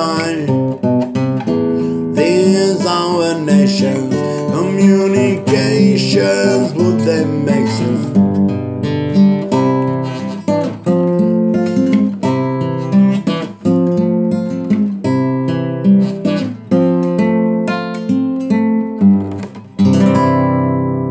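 Acoustic guitar playing strummed and picked chords, with a voice singing over it during the first several seconds; about twenty seconds in a last chord is struck and left to ring out.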